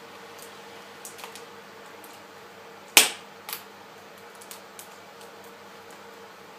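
A sharp snap about three seconds in, followed half a second later by a smaller click, with a few faint ticks around them: the MacBook Pro's logic board and its fittings being prised up out of the aluminium case.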